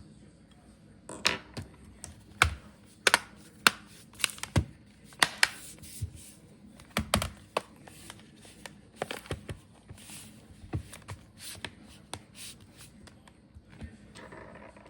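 Irregular sharp plastic clicks and taps from hands working on a Dell Inspiron laptop's case, loudest and closest together in the first half, fewer and softer later.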